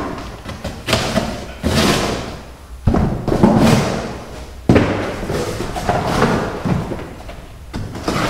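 A cardboard box being cut up and handled: a series of sudden thumps, each followed by a second or so of rough scraping, tearing noise.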